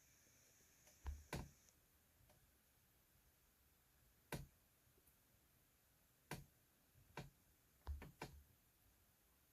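Faint, scattered clicks and taps of small plastic pieces being handled, with near silence in between; a quick cluster comes near the end.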